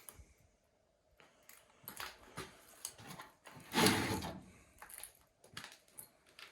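Scattered knocks and scuffs of someone moving about a small room, with one longer, louder scrape about four seconds in.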